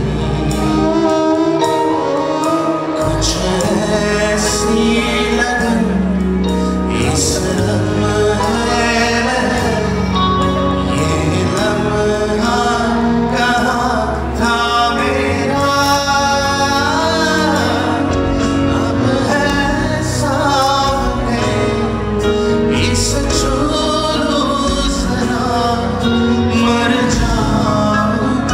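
A man singing a song into a microphone over instrumental backing music.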